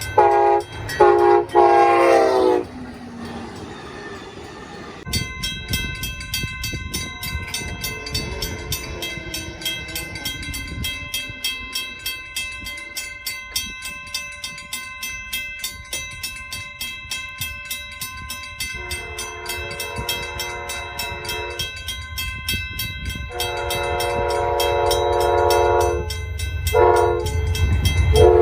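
Amtrak locomotive air horn sounding a quick series of short blasts, then, after a pause, a grade-crossing bell ringing steadily at about three strokes a second. The horn comes back with a blast at about 19 seconds and longer blasts from about 23 seconds as the train's low rumble builds toward the end.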